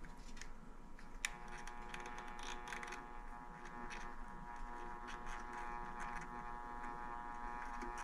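Pistol-grip soldering gun clicking on about a second in, then buzzing steadily with an electrical hum as it heats a bullet connector on a wire end, with small ticks of handling.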